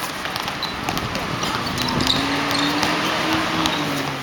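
Sounds of a game between two teams: scattered ball thuds and short shoe squeaks over a background of voices. One drawn-out call starts about halfway and fades near the end.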